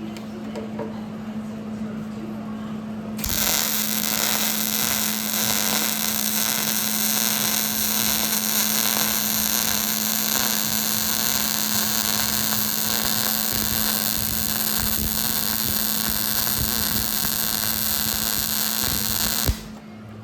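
Metalworking shop equipment: a steady low hum throughout, and about three seconds in a loud, steady hissing noise with a high whine starts, running for about sixteen seconds before cutting off suddenly.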